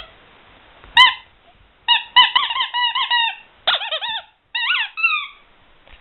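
Ledraplastic rubber squeaky toy being squeezed: one sharp squeak about a second in, then several bursts of quick squeaks, each one dipping and rising in pitch.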